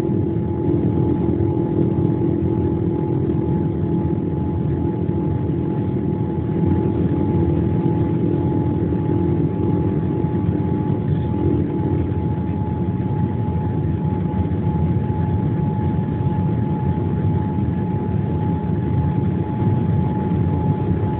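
Airliner cabin noise during landing: a steady rumble of engines and airflow with a constant whine, and a lower hum that stops about halfway through.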